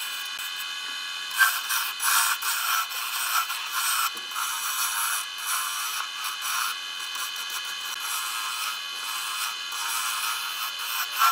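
Wood lathe running with a steady motor whine while a hand-held chisel cuts a spinning wooden spindle, a dry scraping hiss that swells and fades with each pass, loudest about a second and a half in.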